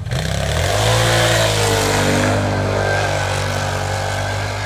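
Arctic Cat vehicle's engine revving up hard from idle in the first second as it pulls away, then held at high steady revs while it drifts. Over it is a hiss of wheels spinning and throwing snow.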